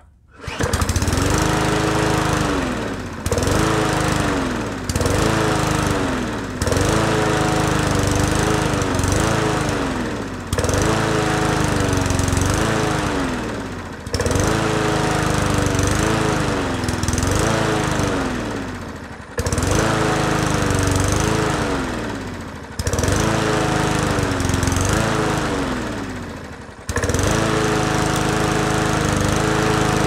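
Small push-mower engine running on starting fluid, surging: it keeps sagging and then picking back up every few seconds, never settling, and steadies only near the end. It is trying to stay running but can't on its own, a sign of a gummed carburetor that the repairer says probably needs servicing.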